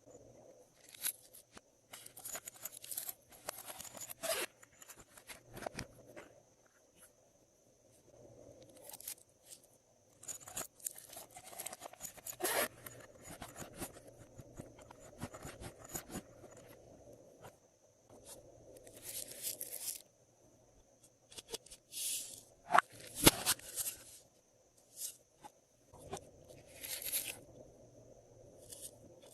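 Glossy slime being squished, stretched and mixed by hand: irregular clusters of sticky crackles and clicks with short pauses between them.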